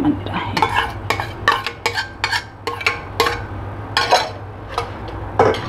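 Quick, irregular clinks and scrapes of a utensil against a bowl and a metal pan as beaten egg is poured into the pan and swirled around to spread it thin, over a steady low hum.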